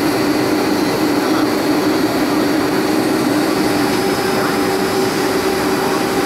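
Steady cabin noise of a Boeing 757-28A airliner on approach, heard from a window seat beside the wing: jet engine drone and airflow, with a steady low hum and a high steady whine.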